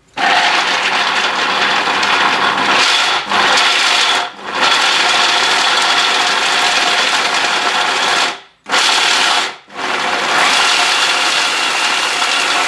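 Electric hand blender's chopper attachment running with a steady whine, chopping whole walnuts, macadamias and cashews. It stops briefly a few times between bursts, kept short so the nuts stay coarse.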